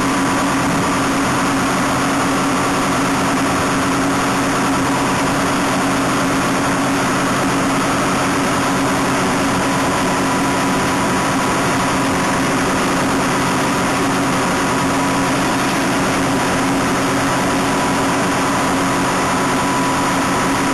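Raspberry harvester running steadily as it works along a row of canes: a constant engine drone with a steady higher whine above it.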